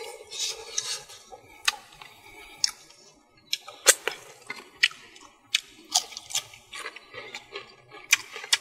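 A man eating fish with his fingers: wet chewing with sharp lip smacks and sucking sounds, several irregular smacks a second.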